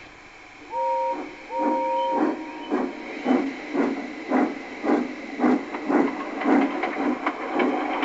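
Steam locomotive sound effect: two whistle toots, a short one and then a longer one, followed by steady chuffing at about two puffs a second over a hiss of steam.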